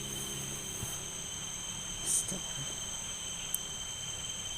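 Forest insects singing a steady, shrill chorus in several high pitches, with a brief rustle about two seconds in.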